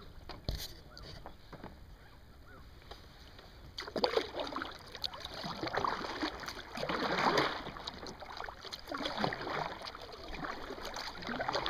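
Kayak paddle strokes swishing and dipping through calm water, starting about four seconds in and repeating roughly once a second, with a single knock near the start.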